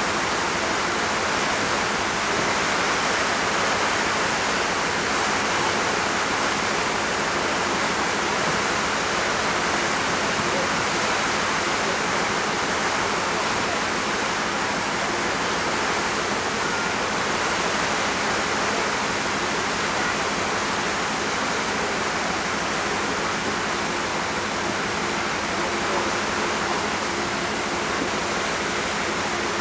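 Steady rushing of water churned up by the car ferry MV Pont Aven's propellers as she pulls away from the berth, with a faint low hum of the ship's machinery underneath.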